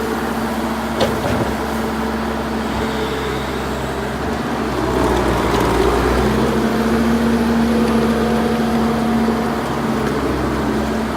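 2011 C190 tracked skid steer's diesel engine running steadily while the machine works. Its pitch dips right at the start and rises again a little past halfway, with a sharp click about a second in.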